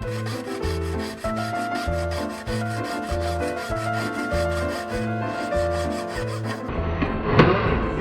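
Background music with a steady bass beat and held notes, over quick repeated rubbing strokes of hand work on a gold bracelet; a louder scraping burst comes near the end.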